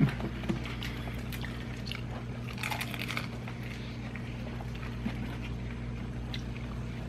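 Close-up eating sounds: biting into and chewing a fried chicken drumstick, with soft wet clicks and a crisp crunch about two and a half seconds in. A steady low hum runs underneath.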